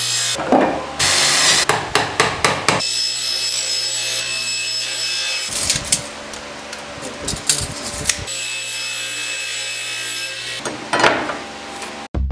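Table saw running and cutting a pine board, a steady motor sound with knocks and scraping of wood and tools in between. The sound changes about halfway through, then the steady running comes back.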